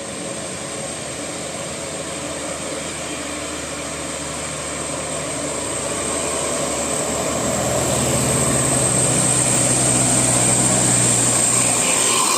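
A large bus's diesel engine running, getting louder through the second half, where a steady low hum sets in.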